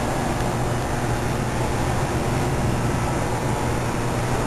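Steady low hum with an even hiss over it, the constant background of live switchgear and running plant equipment in a power plant's electrical room.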